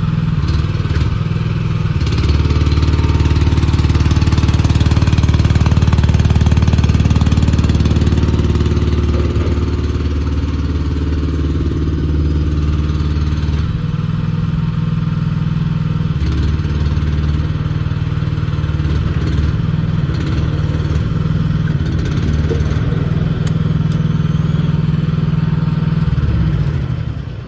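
AGT L13R mini excavator's small engine running steadily, louder and heavier for a stretch from about two seconds in as the machine is worked, then back to a steadier run; the sound falls away just before the end.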